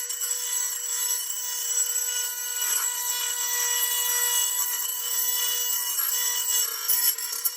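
Small power grinder running with a steady whine, grinding down the rusty cut edge of a steel bracket to take off the sharp metal.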